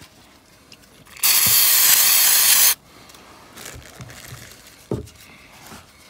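Aerosol throttle body cleaner sprayed in one steady hiss of about a second and a half into the carbon-fouled bore of a throttle body, cutting off sharply; a short knock follows about five seconds in.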